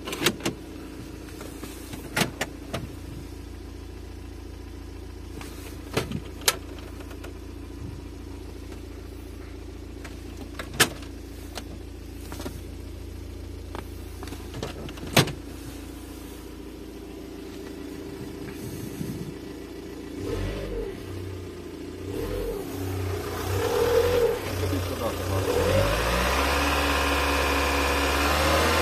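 Car engine idling as it warms up, with several sharp clicks over the first half. About two-thirds of the way in, the engine is revved in a few short blips, then holds at a higher, louder speed.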